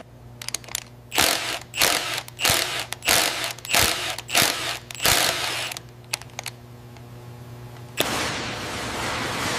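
Cordless electronic torque wrench run in a string of short bursts, about seven, each a little over half a second apart, over a steady low hum. About eight seconds in this gives way to a steady hiss of noise.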